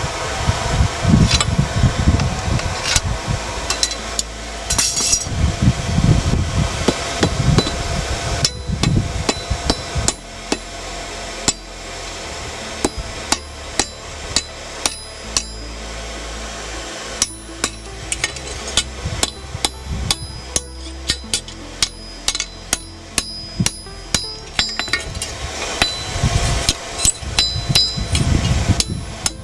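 Repeated hammer blows on steel, with a bright metallic ring, driving a heated crossguard onto a shortsword until it seats tight. The blows come roughly one or two a second, with a low rumble beneath them for the first eight seconds or so.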